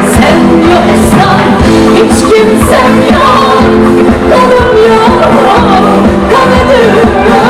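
Live Turkish pop music played loud by a band with drums, with a voice singing a wavering melody over it.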